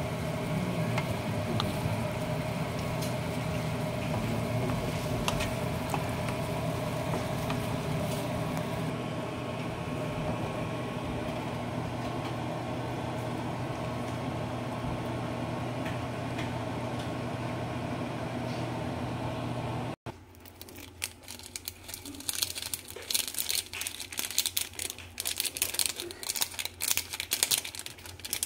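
A steady mechanical hum runs through the first twenty seconds or so, then stops abruptly. After that, a plastic topping packet crinkles and rustles on and off as it is held and shaken over the dish.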